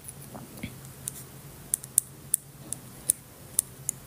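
Scattered light clicks and taps, about ten in four seconds at uneven spacing, over a faint steady low hum.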